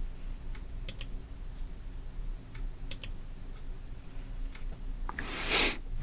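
A few sharp clicks at a computer, with two close pairs about two seconds apart, over a low steady hum. A louder short hissing swell comes near the end.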